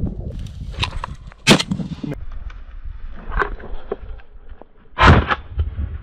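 Two shotgun shots: a sharp report about a second and a half in, then a louder, longer blast about five seconds in. Scattered crunching of steps on stony ground comes between them. The second shot kicks up dust short of the target, a missed shot at a running rabbit.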